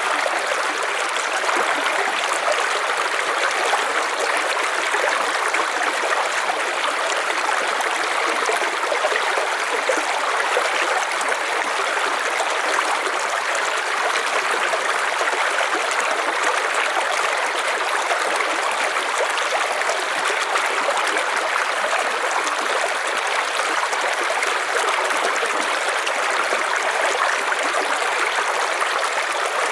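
River water rushing and splashing over stones in a steady, unbroken flow.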